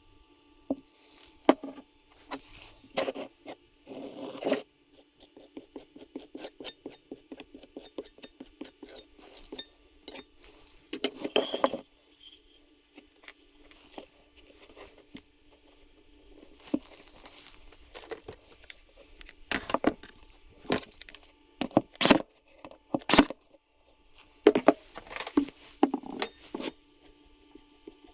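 Light clicks, knocks and rustling of small objects being handled, with a few sharper knocks in the second half.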